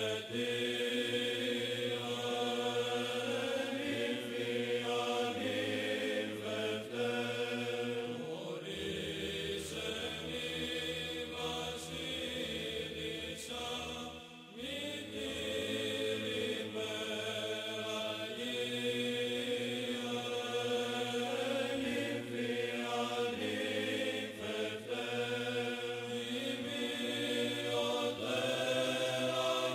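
Background music of Orthodox-style chant: voices sing a slow, held melody over a sustained low drone note.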